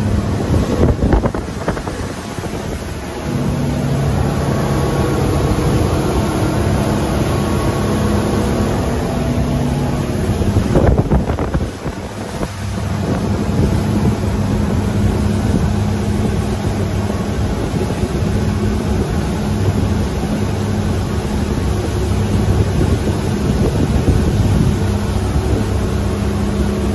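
Motorboat engine running steadily underway, a constant drone with wind noise buffeting the microphone. The engine note shifts a few seconds in and again about twelve seconds in, around a short surge of wind noise.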